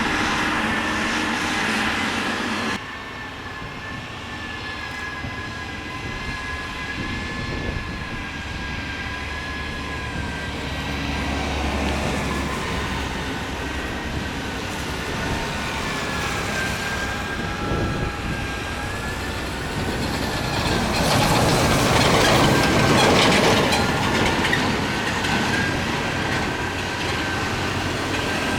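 Motor grader running under load, a steady engine drone with a high, wavering whine. Loudness drops abruptly about three seconds in, and a rough scraping-like noise swells about three-quarters of the way through.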